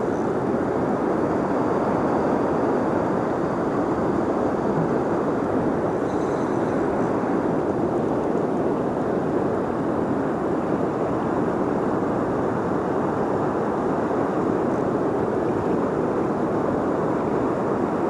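Steady rush of fast, flood-high river water pouring through a dam, an even, unbroken noise.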